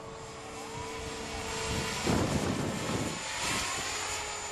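Electric RC helicopter in flight, its brushless motor (a JGF 500TH) and rotor giving a steady whine that swells louder and noisier about two seconds in.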